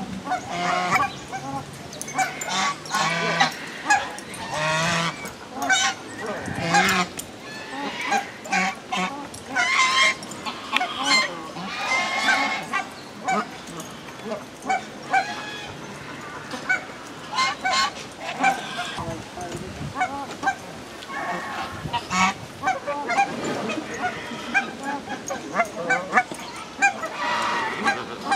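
A mixed flock of captive geese (swan geese, lesser white-fronted geese and cackling geese) honking over and over at feeding time, many short calls overlapping.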